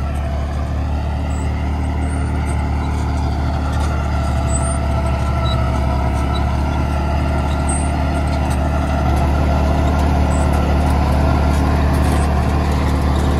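Tractor's diesel engine running steadily under load at about 1500 rpm, driving a Landforce super seeder whose rotor churns the soil as it sows wheat; the sound grows slightly louder as it gets closer.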